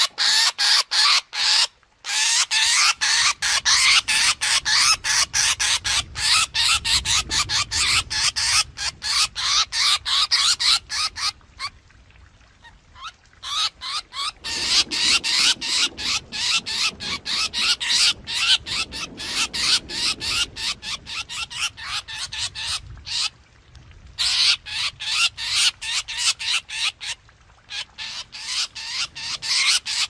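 Drongo calls as a flock-summoning lure recording: long runs of short, high notes in quick succession, several a second, with brief lulls about 2 s in, around 12 seconds and near 23 seconds.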